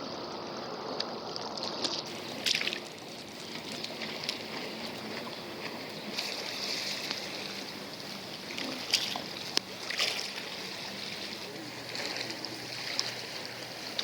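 Running water, with a few short splashes along the way.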